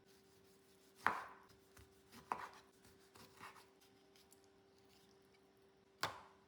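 A kitchen knife cutting through fruit onto a cutting board: four separate chopping strokes, the first two about a second apart, a softer third, then a pause before a last sharp cut near the end.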